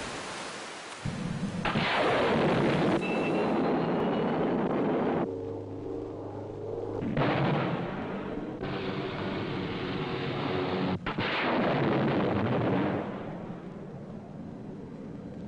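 Solid-fuel rocket motor of a Polaris missile firing at launch: three sudden loud rushes of noise, each fading over a few seconds, with steady low tones sounding between them.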